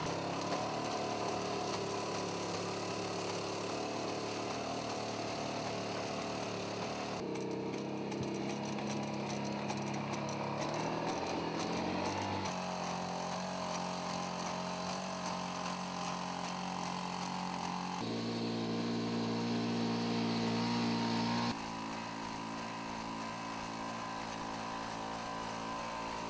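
Boston Dynamics LS3 legged robot's onboard engine and hydraulic power unit running with a steady drone as it walks. The pitch and level jump at several cuts between shots.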